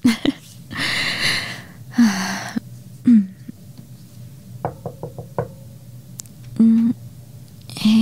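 A quick run of about five knocks on a door, midway through, with soft breathy vocal sounds before and after.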